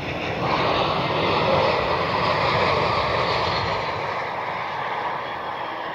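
Spirit Airlines Airbus A320-family jet landing: its jet engine noise swells suddenly about half a second in as it passes close, stays loud for a couple of seconds, then eases as it rolls out on the runway.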